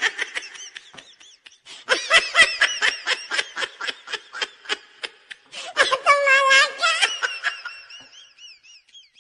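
A person laughing hard in rapid bursts, with a long high-pitched squeal about six seconds in that trails off into faint wheezy giggles.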